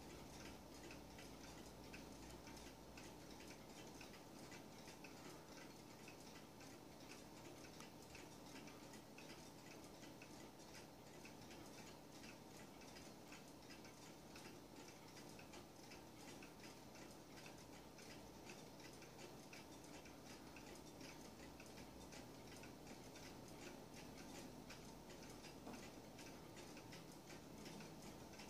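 Weight-driven cuckoo clock ticking faintly and steadily, its escapement giving a regular tick-tock.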